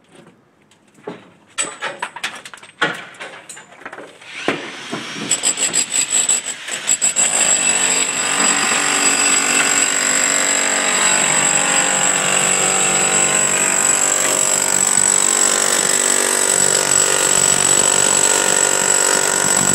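A few separate knocks on brick from a hand hammer. Then, about five seconds in, a handheld power chisel (demolition hammer) starts up and runs steadily, hammering a chisel bit into the mortar joints between the bricks.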